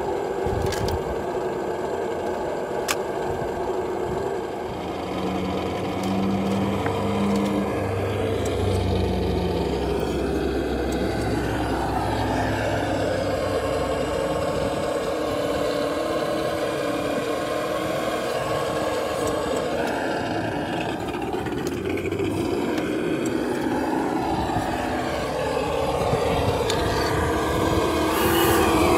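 Traxxas TRX-4 RC crawler being driven on its new Pro-Line Hyrax 1.9 tyres: a steady motor and gear whine that rises and falls in pitch as it speeds up and slows.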